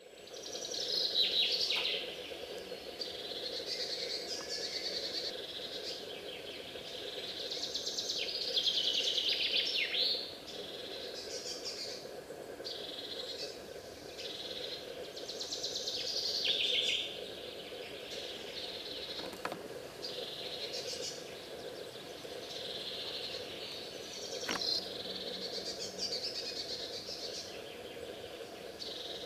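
Songbirds singing, repeated high phrases of a second or two, several overlapping, over a low steady hum.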